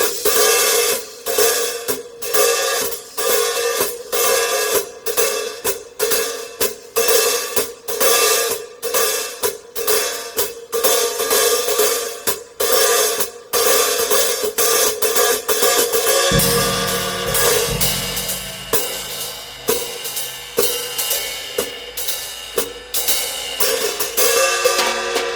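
Background music with a steady beat of cymbal and hi-hat strikes; a low bass part comes in about two-thirds of the way through.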